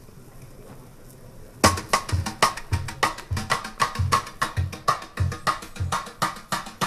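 Denon SC-7.5 bookshelf speakers playing a vinyl record in the room, as a listening test of their rebuilt woofer surrounds. After about a second and a half of quiet, music with a steady drum beat starts, about two hits a second.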